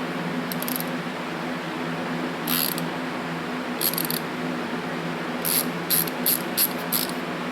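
Short metallic clicks and rattles from hand tools and small parts being handled: a few spaced clicks, then a quick run of five near the end. A steady shop fan hum runs underneath.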